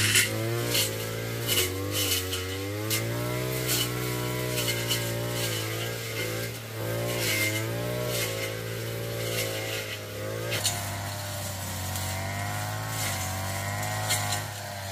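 A small engine running steadily, its pitch wavering up and down, with sharp clicks or knocks about once a second.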